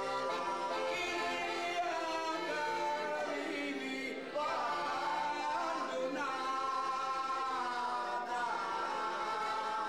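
Traditional Italian folk song: singing with a wavering melody over steady, held instrumental notes.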